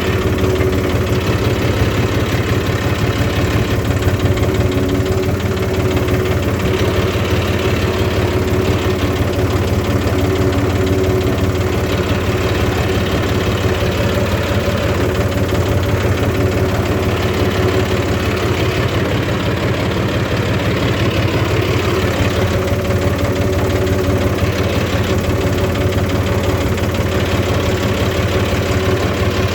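Farm machine engine idling steadily at an even speed.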